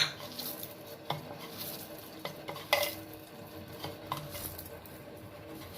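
Fresh chhena (squeezed paneer curd) being kneaded and mixed in a bowl, soft rubbing and stirring with a few sharp clinks against the vessel.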